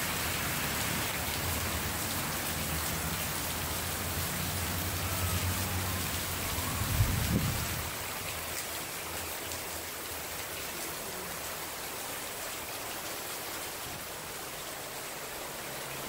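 Heavy rain pouring steadily onto pavement and shrubs, with a low steady hum under it for the first half. A single brief low thump about seven seconds in.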